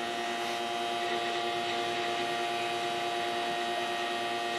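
Cincinnati Milacron 220-8 centerless grinder running, a steady machine hum made of several steady tones from its motors and spinning wheels.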